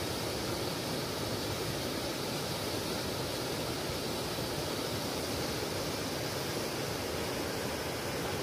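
River water rushing steadily over a low concrete weir and a small waterfall, an even, unbroken rush.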